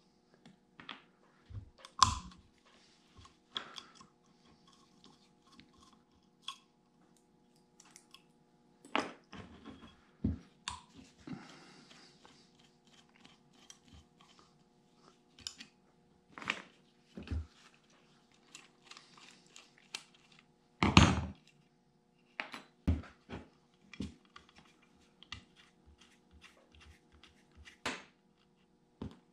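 Irregular clicks, taps and light scrapes of a screwdriver and small screws and parts inside a Farmall H distributor housing, as the breaker points and condenser are unscrewed and lifted out, with a faint steady hum underneath.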